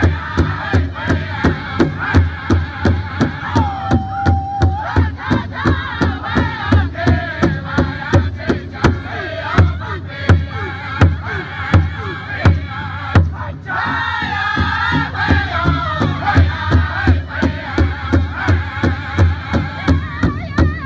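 Northern-style powwow drum group singing a jingle-dress song: several men striking a large powwow drum together in a steady, even beat while singing loudly in unison at a high pitch. The drumbeat stops for a moment about two-thirds through, then comes back under the singing.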